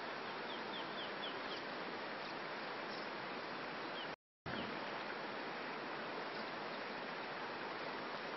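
Steady rushing of flowing river water. About half a second in, a bird gives a quick run of about five short, high, falling chirps. The sound cuts out for a moment a little past four seconds.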